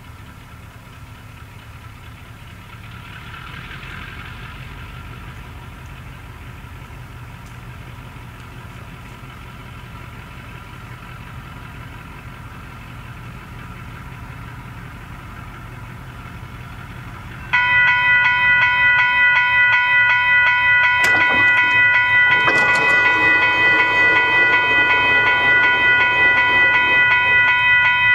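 Faint low rumble of a distant diesel train approaching. About two-thirds of the way through, a grade-crossing warning bell starts up abruptly close by and rings loud and steady, with a rougher sound joining beneath it a few seconds later.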